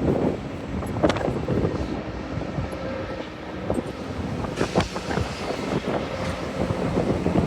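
Wind buffeting the microphone as a rough, uneven rumble, with a few sharp knocks, one about a second in and a cluster near the middle.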